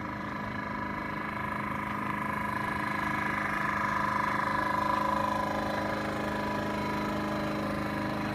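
A steady engine hum with an even pitch, swelling slightly in the middle.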